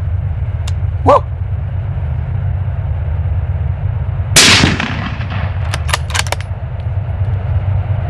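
A single rifle shot about four seconds in, a sharp crack that trails off, as the coyote in the crosshairs is hit and drops. A short pitched call sounds about a second in, and a quick run of sharp clicks follows about a second and a half after the shot, all over a steady low hum.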